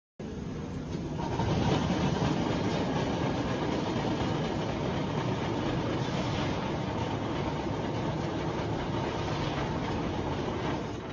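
Industrial machinery running in a forging shop: an automatic magazine feeding square steel bars onto a roller line, with a steady rumble and clatter. The noise drops off near the end.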